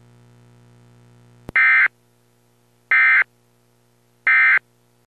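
Emergency Alert System end-of-message signal: three short, identical bursts of SAME digital data tones about a second and a half apart, preceded by a click. A low steady hum runs under them and cuts off just after the last burst.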